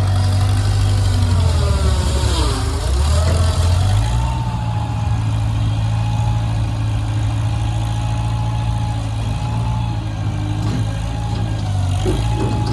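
An engine running steadily, with a brief drop and rise in pitch about two to three seconds in.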